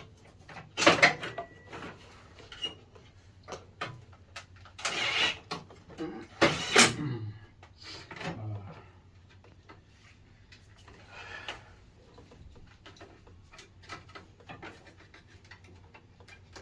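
Scattered clicks and knocks of hands and tools working on equipment, with a few louder short bursts of clatter and hiss about 1, 5 and 7 seconds in.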